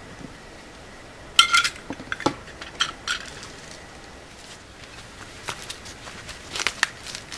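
Metal camp cooking pot being handled: a sharp ringing clank about a second and a half in, then scattered lighter clinks and knocks.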